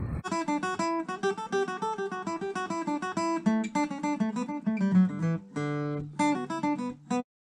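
Acoustic guitar played with the fingers: a run of plucked single notes and chords that stops abruptly a moment before the end.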